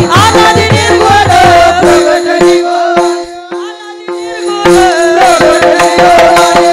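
Marathi devotional kirtan music: a harmonium holding steady notes, hand-drum beats and small hand cymbals keeping the rhythm, with a voice singing over them. About two seconds in the drums drop out and only the held notes and voice carry on, then the drums come back in.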